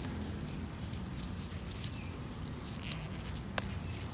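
Cassava plant leaves rustling and crackling as young leaves are picked by hand, with a few short, sharp crackles over a steady low background hum.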